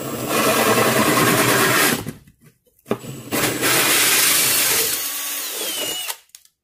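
Milwaukee Fuel cordless drill spinning a hole saw that cuts through drywall, in two bursts of about two and three seconds with a short pause between. The second burst ends in a falling whine as the drill spins down.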